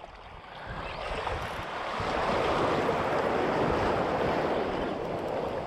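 Surf washing in around the legs: a rushing hiss of water that swells about a second in and eases off near the end.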